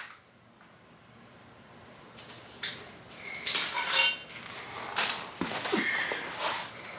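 Scattered light clinks, clicks and knocks of scooter parts and wiring being handled by hand during repair work, beginning about two seconds in after a quiet start.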